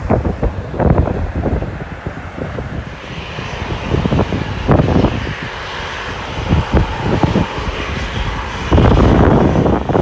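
Jet aircraft engines running, heard through heavy wind buffeting on the microphone. A higher engine hiss comes in about three seconds in, and a louder rush follows near the end.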